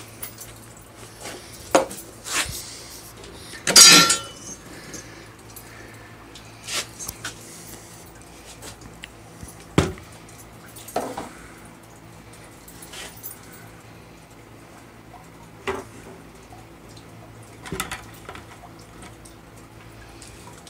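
Irregular clicks, knocks and clinks of a PVC pipe and small fittings being handled and set down on a workbench, the loudest knock about four seconds in, over a faint steady hum.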